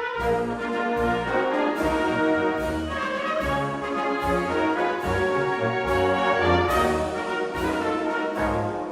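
Brass band or orchestral music with sustained brass chords, a pulsing bass and a steady beat of cymbal crashes.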